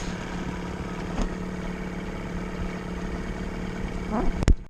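Small boat's Johnson 9.9 hp outboard motor running with a steady hum. Near the end a click and the sound cuts off suddenly.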